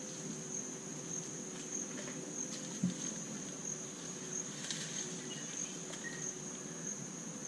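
A high-pitched insect trill, steady with a slight pulse, over a faint hiss of mangrove ambience. A few soft knocks and snaps of footsteps through mud and fallen timber sound about three seconds in and again near five seconds.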